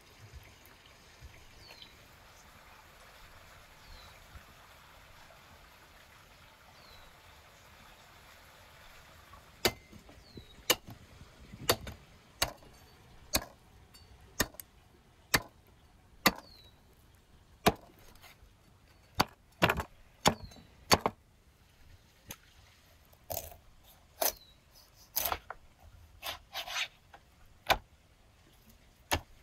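Heavy cleaver chopping through a rack of lamb ribs onto a wooden cutting board. Sharp chops start about ten seconds in and come roughly once a second, some in quick pairs.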